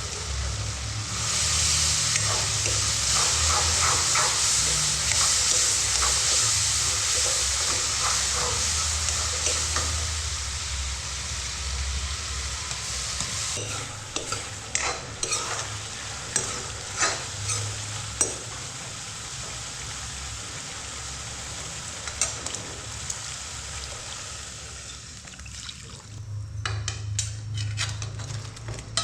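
Food for a fish curry sizzling as it fries in a pan, stirred with a spatula that clicks and knocks against the pan. The sizzle starts strong about a second in and slowly dies down, with a run of sharp knocks near the end.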